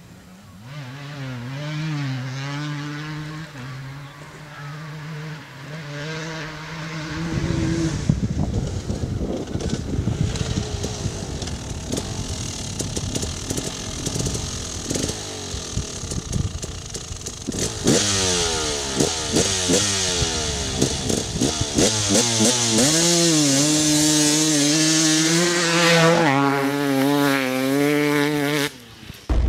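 KTM 300 EXC's single-cylinder two-stroke engine idling with small blips of the throttle, then revved hard under load with repeated rising sweeps in pitch, then back to a steady idle. The sound cuts off abruptly near the end.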